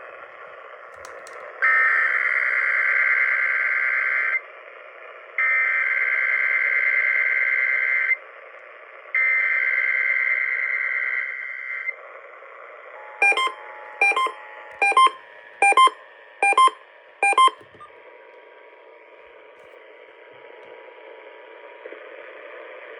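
Emergency Alert System Required Monthly Test received on AM radio: three bursts of SAME header data, each about three seconds long with a second's gap between them. About a second later come six short beeps less than a second apart over a faint steady two-tone attention signal, all under a constant AM static hiss.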